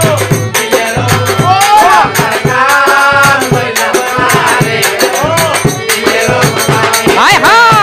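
Live Sylheti folk music: fast, steady rattling percussion under a melody that winds up and down.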